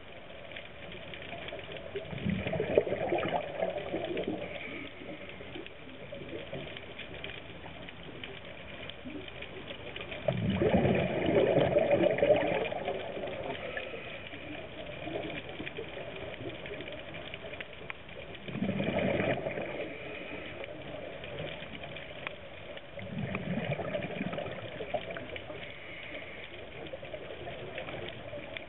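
Scuba diver's exhaled bubbles gushing from the regulator four times, one burst every several seconds, heard underwater through the camera housing over a steady muffled hiss.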